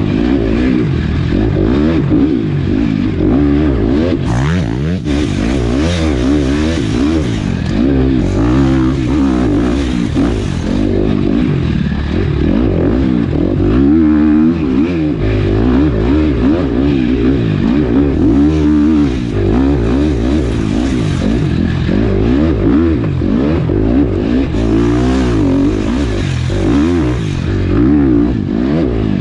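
KTM 250 SX-F Factory Edition's single-cylinder four-stroke motocross engine with an FMF exhaust, revving up and down constantly as the bike is ridden hard over a rough dirt trail, heard from a camera mounted on the bike.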